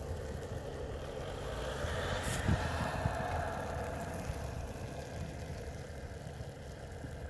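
Pickup truck engine running as the truck drives through deep snow, heard from outside. It swells about two seconds in, then fades as the truck pulls away. There is a single knock about two and a half seconds in.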